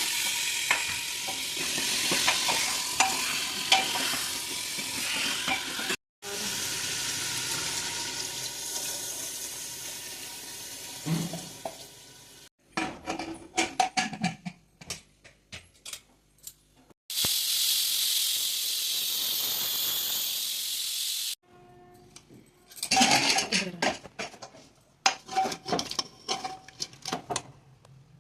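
Ratalu (purple yam) frying and sizzling in hot oil, in several short clips cut together. Between them come spells of utensils clinking and scraping against the pan or dish.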